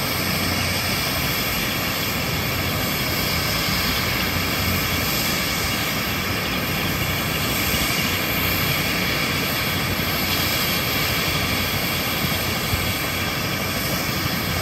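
AH-64 Apache attack helicopter running on the ground with its rotors turning. Its twin turboshaft engines give a steady whine with several high tones over a constant rush of rotor and engine noise.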